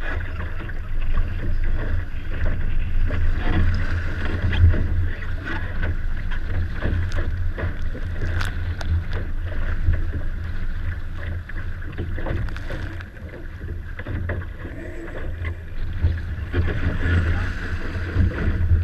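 Wind rumbling on the microphone, with water rushing and splashing along the hull of a small sailing dinghy under way.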